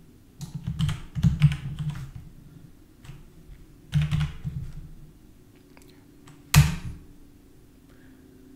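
Typing on a computer keyboard: clusters of keystrokes in the first two seconds and again about four seconds in, then one sharp key press, the loudest, about six and a half seconds in.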